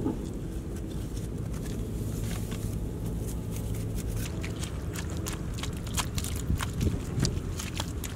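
A small hand digging tool scraping and prying into crumbly red soil, with many short crunches and crackles of breaking clods that grow busier about three seconds in. A steady low rumble runs underneath.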